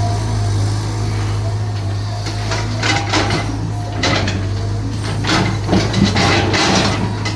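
Caterpillar 320 GC excavator's diesel engine running with a steady drone, joined from about two and a half seconds in by a series of irregular clanks and knocks from the machine at work.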